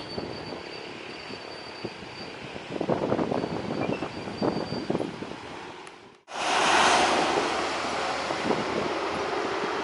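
Gusty wind buffeting the microphone, then, after an abrupt cut about six seconds in, the louder, steady noise of a jet airliner's engines.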